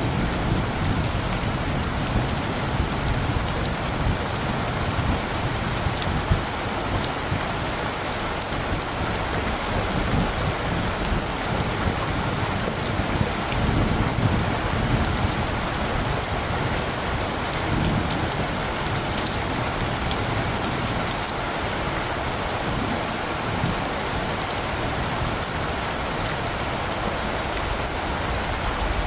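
Steady rain with many distinct drop hits. Light thunder rumbles low and swells now and then, most clearly about fourteen and eighteen seconds in.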